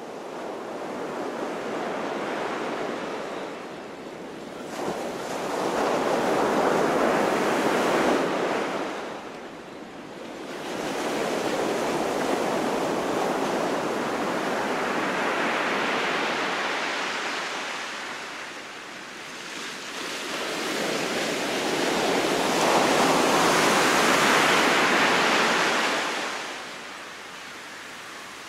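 Ocean surf: waves breaking and washing up the beach, the rush swelling and fading four times, several seconds apart.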